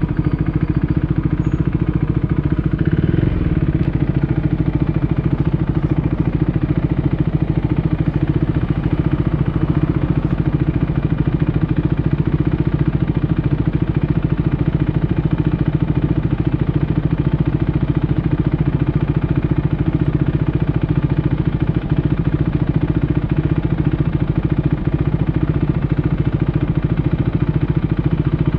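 Husqvarna Svartpilen 401's single-cylinder engine, fitted with an SC-Project aftermarket exhaust, idling steadily.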